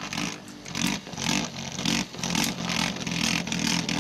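A Beyblade top (Samurai Saramanda) spinning in a clear plastic stadium, its tip grinding and whirring on the plastic floor with an uneven pulsing rattle. It is spinning weakly.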